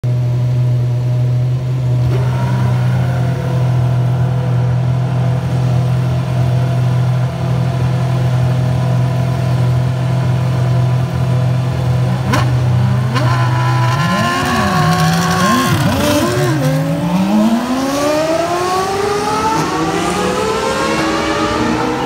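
Formula 1 engine idling steadily at a high, even pitch, then blipped several times in quick revs about fourteen seconds in, followed by a steadily rising rev as the engine is pushed up the range. A single sharp pop comes shortly before the blips.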